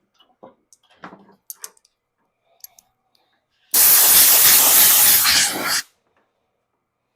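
A blast of compressed air, about two seconds long, starting a few seconds in and cutting off sharply, blowing sanding dust off a freshly sanded wooden carving. Faint handling clicks come before it.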